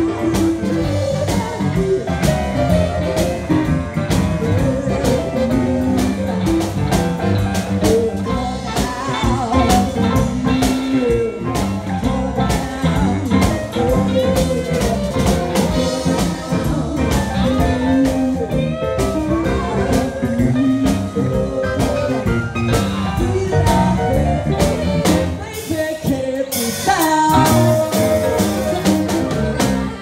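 A woman sings a blues song into a microphone, backed by a live band with electric guitar and drum kit. About four seconds before the end the band drops back briefly, then comes back in loudly.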